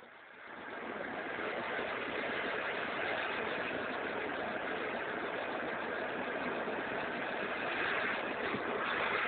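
Butane torch burning with a steady hiss as it heats a knife blade, coming up in the first second and then holding even.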